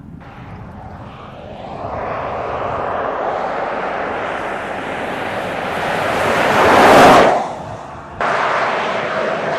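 Land Rover Defender 90 driving past. Engine and tyre noise build to a loud pass about seven seconds in, then die away quickly. An abrupt cut about a second later switches to steady driving noise.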